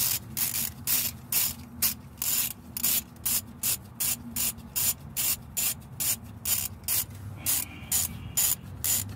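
Hand ratchet being swung quickly back and forth to loosen an alternator bracket bolt, each return stroke a short burst of pawl clicks, about two to three bursts a second.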